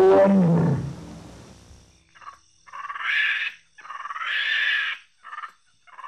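Animal calls: one loud call falling in pitch at the start, then, after a short gap, several short harsh rasping calls.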